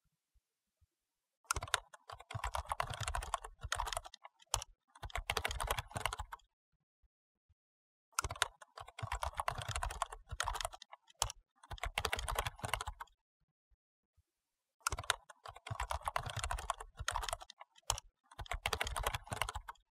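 Fast typing on a computer keyboard: rapid key clicks in runs of a few seconds each, broken by brief pauses.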